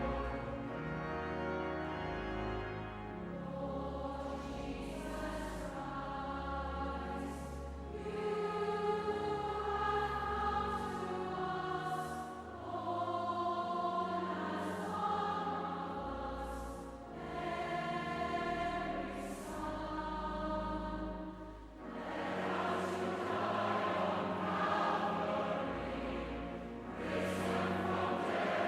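Choir singing slow sustained chords over a low bass line.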